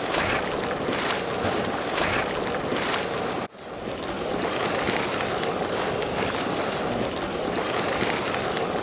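Steady rushing hiss of steam vents and boiling hot springs in a geothermal field, dropping out for an instant about three and a half seconds in.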